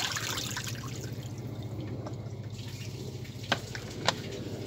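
Rinse water trickling and dripping off a tilted plastic basin of washed fish as it is drained into a concrete sink, over a steady low hum. Two sharp clicks come near the end, about half a second apart.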